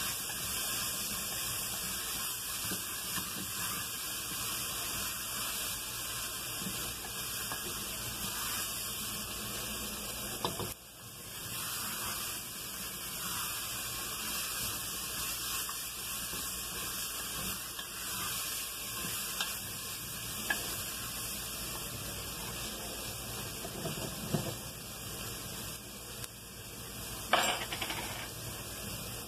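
Mocotó and seasonings frying in an open pressure cooker: a steady high sizzling hiss, with a few knocks and scrapes of a wooden spoon against the pot, the loudest near the end.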